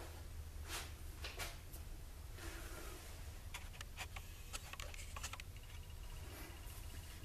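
Faint scattered clicks and handling sounds as a lathe's four-jaw chuck is turned slowly by hand for a dial-indicator runout check, over a steady low hum. A faint high steady tone comes in about five seconds in.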